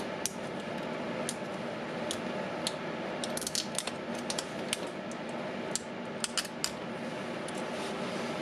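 Scattered light clicks and crackles from handling a Milwaukee M12 battery's cell pack and circuit board in gloved hands as a strip of tape is peeled off the cells, busiest in the middle, over a steady background hiss.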